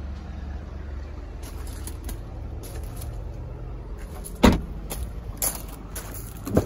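The hatchback tailgate of a Ford Fiesta is shut with a single loud thud about four and a half seconds in, with footsteps crunching on gravel around it. Near the end a sharp click comes as the rear side door's latch is pulled open.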